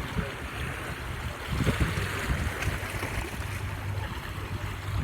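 Small sea waves washing and hissing on the shore, swelling about two seconds in, with a low wind rumble on the microphone.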